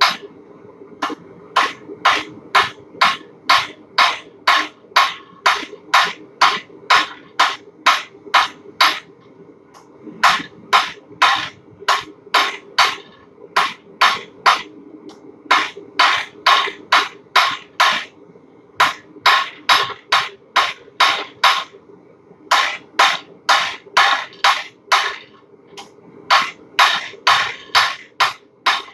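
Blacksmith hammering hot steel on an anvil with a heavy, rounded-face ball peen hammer: steady strokes about two to three a second, each with a short ring, in runs broken by brief pauses, over a faint steady hum.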